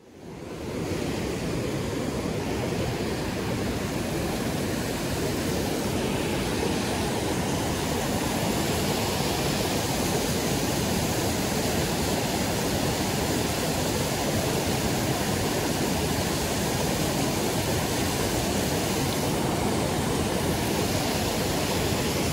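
River rapids rushing steadily, fading in over the first second.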